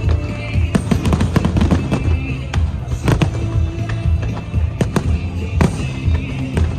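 Aerial fireworks bursting: many sharp bangs and crackles in quick, irregular succession, over music with a heavy bass.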